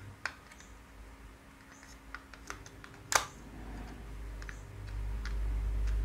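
Small irregular plastic clicks and taps as an AA battery is handled and pressed into the battery holder of a quartz wall-clock movement, the loudest snap about three seconds in. A low rumble of handling builds near the end.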